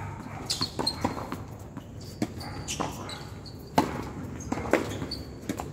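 Tennis ball bouncing on a hard court and being struck by rackets during play, a series of sharp knocks; the loudest, a racket hit close by, comes just before four seconds in.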